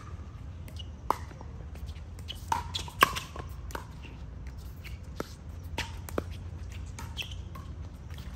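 Pickleball rally: a run of irregular sharp pops from paddles striking the hollow plastic ball and the ball bouncing on the court, the loudest about three seconds in, over a steady low hum.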